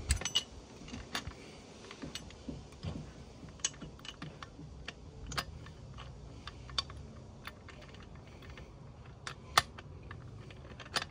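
Irregular small metal clicks and clinks as a Suzuki RM85's gearbox shafts and gears are worked by hand into the engine's crankcase half, with two sharper knocks near the end.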